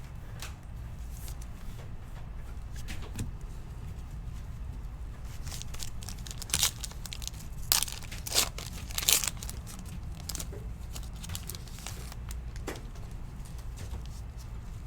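Foil wrapper of a trading card pack being torn open and crinkled, with four short sharp rips between about six and nine and a half seconds in, over a steady low hum.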